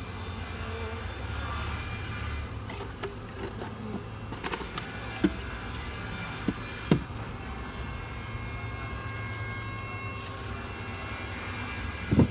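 Honey bees buzzing in the air around an open hive, with a few sharp wooden knocks as hive boards are handled. The loudest knock comes near the end, when the wooden package box is set down on the hive.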